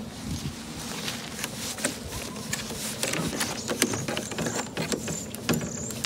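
Irregular small clicks and taps from fingers working the buttons and faders of a Mackie SR24·4 mixing console.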